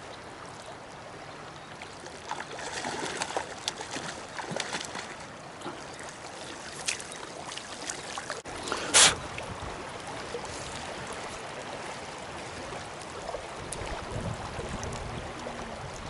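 River water running and trickling steadily, with scattered small clicks and one brief, loud rush of noise about nine seconds in.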